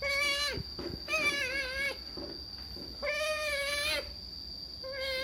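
Pet otter giving four high-pitched wavering calls in a row, each about half a second to a second long, excited over salmon.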